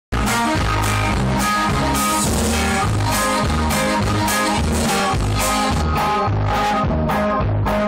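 Live band music: an accordion playing the melody over a drum kit and a bass line, with a steady beat of about two drum hits a second. The music starts suddenly at the very beginning.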